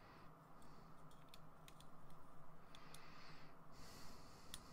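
Faint, scattered clicks of hard plastic model-kit parts being handled and pressed together, with a soft breath through the nose in the second half.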